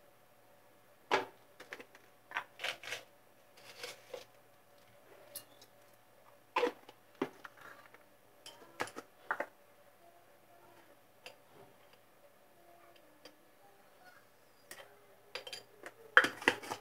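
Scattered clicks and light knocks from handling things on a kitchen counter, the loudest about a second in and a quick cluster near the end, over a faint steady hum.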